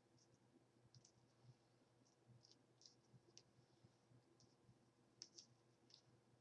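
Near silence with a dozen or so faint, short, irregular ticks and rustles: hands handling bendable foam flexi rods in hair as the rods are unrolled and taken out.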